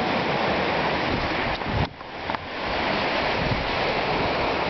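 Sea surf washing over rocks mixed with wind on the microphone, a steady rushing noise that drops out briefly about two seconds in.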